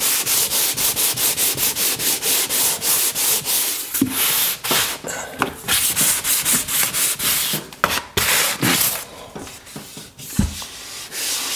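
Hand sanding block with fine-grit sandpaper rubbing back and forth over a dried joint-compound patch on drywall, smoothing a repaired crack. Quick, even strokes about three or four a second, turning slower and irregular after about four seconds, with a quieter pause near the end.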